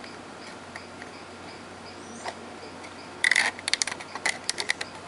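Handling noise from a plastic portable radio being pressed and moved: a quick, irregular run of sharp clicks and crackles starts about three seconds in, over a faint steady hum.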